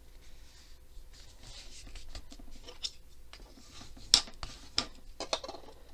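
Thick manila file-folder card rustling and rubbing as it is pressed flat along a fold by hand, with a few light taps and clicks, the sharpest about four seconds in.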